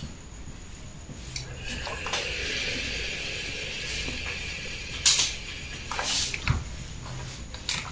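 Steam iron hissing steadily for a few seconds while pressing cotton fabric, then a few short sharp rustles of the fabric being handled and a dull thump.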